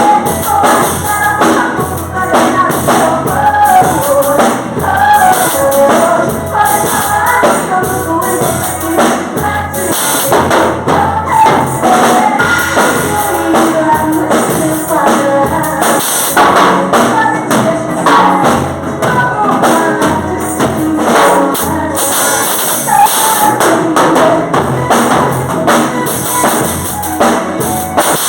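Music: an upbeat Brazilian calypso-style pop song with singing over a busy drum-kit beat and tambourine.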